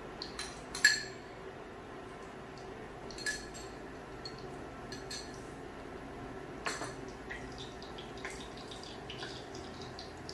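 A few clinks and knocks of kitchen containers and utensils being handled, the loudest about a second in, over a steady low hum.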